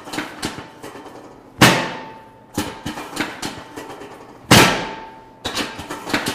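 Chiropractic drop table's drop section giving way under an adjustment thrust: two loud, sharp clacks, about a second and a half and four and a half seconds in, each with a short metallic ring. Lighter clicks and knocks come between them.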